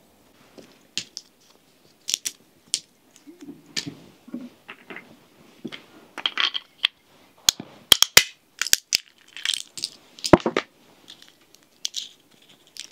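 Objects being handled: an irregular run of sharp clicks, light clatter and crunchy rustling, with one louder knock about ten seconds in.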